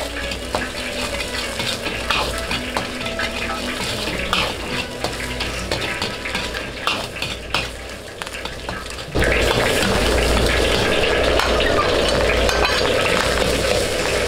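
Fried rice being stir-fried in a wok: a metal spatula clinks and scrapes against the pan over sizzling. About nine seconds in, the frying abruptly becomes much louder and steadier.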